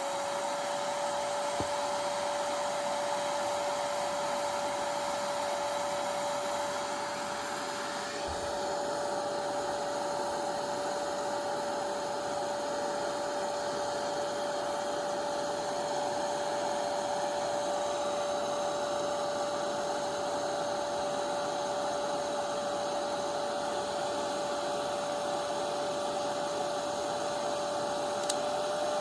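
Salon Series 1600 hair dryer running steadily: a blowing rush of air with one held motor tone on top, its sound shifting slightly about eight seconds in.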